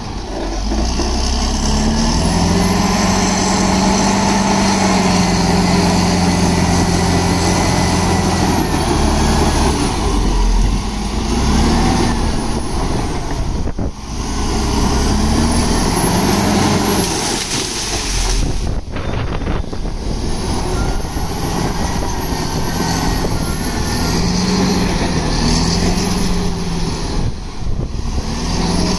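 Caterpillar D7 crawler bulldozer's diesel engine running under load as the dozer pushes soil with its blade, its pitch rising and falling with the load. A faint high whine rises and falls alongside.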